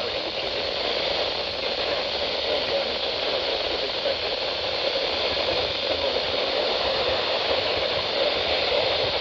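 Steady hiss of radio static from a receiver picking up no voice or tones between alert broadcasts.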